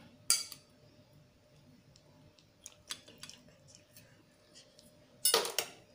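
Metal spoon clinking and scraping against a glass bowl and a plastic mould as pieces of fruit are spooned in: a sharp clink just after the start, a few faint ticks, then a louder clatter near the end.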